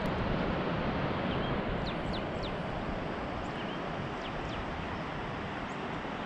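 Several short, high bird chirps, most of them between about two and five seconds in, over a steady rushing noise.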